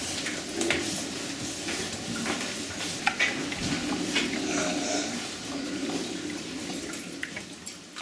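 Fattening pigs rooting and feeding at a trough, a steady rustling and snuffling with scattered sharp clicks and knocks of snouts against the trough and pen.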